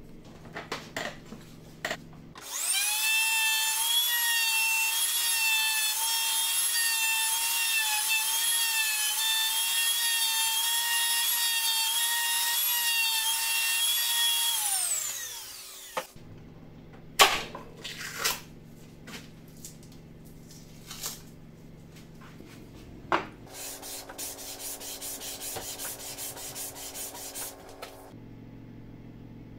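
Handheld trim router starting up and running at a steady high whine, then spinning down with falling pitch. Afterwards come a few knocks of wood being handled and a few seconds of rough rubbing near the end.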